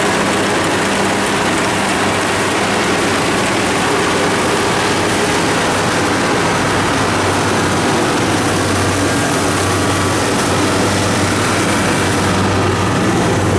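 Kubota rice combine harvester's diesel engine and threshing machinery running, a loud, steady drone.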